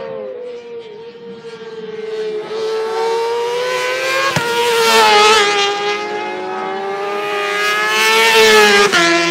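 Race sport-bike engine held at high revs as it comes through close by, rising to a peak about five seconds in with a sharp crack. It swells again to a second peak near the end, where another crack comes with a sudden step down in pitch.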